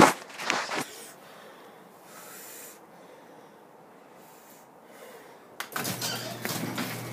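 A loud sharp click and a few knocks, then quiet. About five and a half seconds in, a click and a Craftsman half-horsepower garage door opener's motor starts up, running with a steady low hum and rattling.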